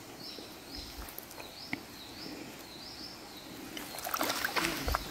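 A high, short chirping call, rising and then held, repeats about every half second over the stream's background. Near the end come scattered splashes and rustling as a line with a small trap is swung out into the shallow stream.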